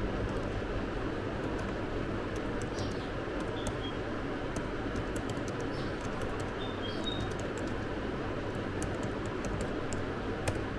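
Laptop keyboard keys clicking at an irregular pace as a sentence is typed, over a steady background hiss. A few short, faint high chirps.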